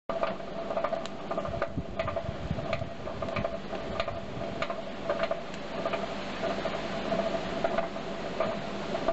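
Blacksmith's forge fire burning hard and throwing sparks, crackling and popping irregularly over a steady hum.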